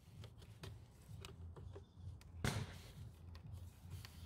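Faint scattered taps and clicks from PVC soffit boards being handled and fitted, with one brief, louder scraping rustle about two and a half seconds in.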